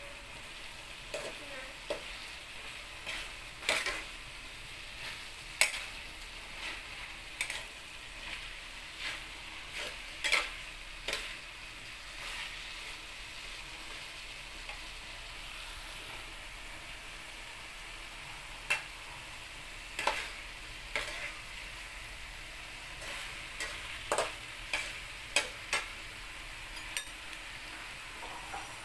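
Pork, carrot, onion and mushrooms sizzling steadily in a metal wok, with irregular sharp clinks and scrapes as a metal spatula stirs and turns them against the pan. The clinks come every second or two, thin out in the middle, and pick up again near the end.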